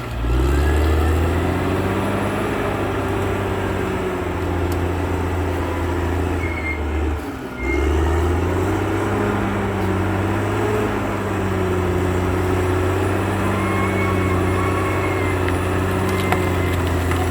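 Caterpillar D6R XL bulldozer's diesel engine running steadily, with a brief drop in level about seven and a half seconds in.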